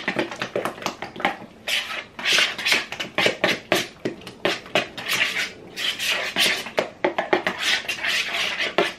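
A spoon stirring a thick ricotta cheese filling in a mixing bowl: repeated scraping strokes against the bowl, about one a second, with small clicks in between.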